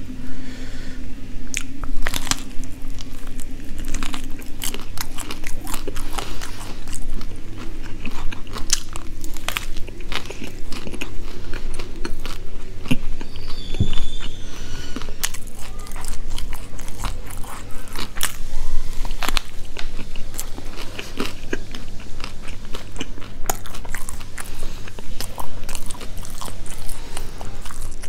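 Close-miked biting and chewing of a chicken burger, with dense, irregular crunches and crackles as the bun and chicken are bitten and chewed.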